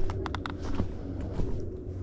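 A hiker's footsteps, with a quick run of three or four sharp clicks about a quarter of a second in.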